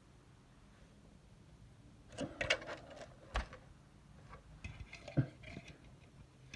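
A few light clicks and knocks in two short clusters, about two seconds in and again about five seconds in, over quiet room tone.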